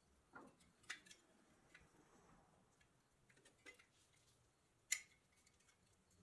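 Light metallic clicks and clinks from the pressed-steel body parts of a 1930s Metalcraft toy truck being handled and tilted by gloved hands: a handful of scattered clicks, the sharpest about five seconds in.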